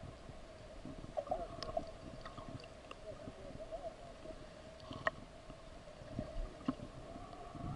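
Muffled underwater ambience from a camera held below the sea surface: a steady hum with scattered faint clicks and ticks.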